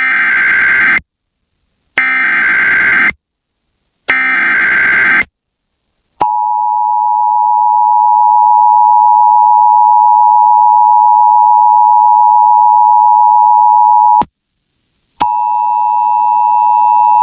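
Emergency Alert System signal: three short screeching data bursts, each about a second long (the SAME header that encodes the alert), then the steady two-tone attention signal held for about eight seconds. After a second's pause a tone starts again with hiss beneath it. This sequence announces a severe thunderstorm warning.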